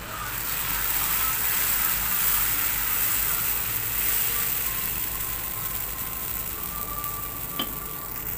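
Tuvar dal dosa batter sizzling on a hot dosa griddle as it is ladled on and spread in circles, a steady hiss that grows louder about a second in. One short tap near the end.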